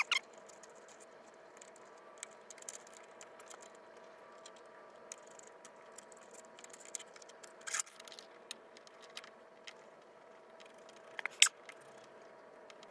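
Light, scattered clicks and taps of small metal stove parts being handled and fitted together, with a couple of louder clicks about eight and eleven seconds in, over a faint steady hum.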